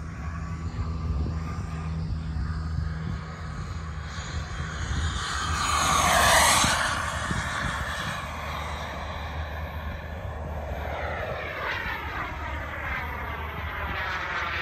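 Xicoy model jet turbine on a CARF Rebel RC jet flying past. Its whine and rush swell to a peak about six seconds in and fall away in pitch, then build again near the end as it comes round for another pass.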